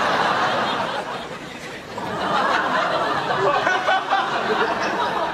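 Sitcom studio audience laughing at a punchline, easing off about a second and a half in and swelling into a second wave of laughter.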